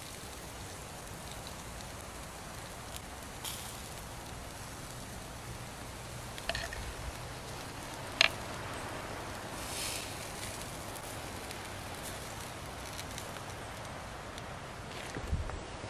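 Steak and vegetables sizzling on a wire grill over campfire embers: a steady hiss with a few sharp crackles and pops, the loudest about eight seconds in.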